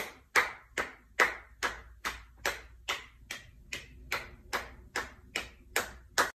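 Steady clicks of a table-tennis ball in a back-and-forth rally, each a short sharp click with a brief ring, about two and a half a second.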